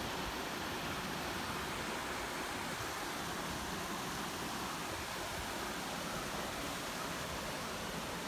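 Steady, even rush of flowing stream water with no distinct events.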